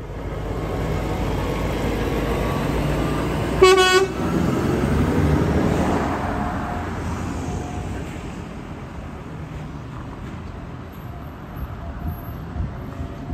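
Heavy-haul truck's diesel engine running as it drives past pulling a low-loader trailer, the noise swelling and then fading away. A short horn toot sounds about four seconds in.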